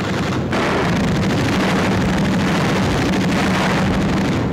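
Aircraft engines running loudly and steadily on an old film soundtrack, a dense roar with a steady low hum from about a second in.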